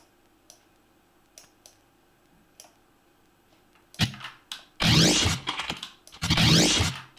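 A few soft clicks while editing on the computer, then a transition sound effect played back from the edit. It is a sudden hit about four seconds in, followed by two loud, noisy whooshing sweeps of about a second each.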